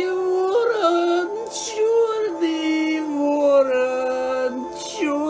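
A man singing alone, unaccompanied, in long drawn-out plaintive notes that step up and down in pitch, with a hissing consonant about a third of the way in and again near the end.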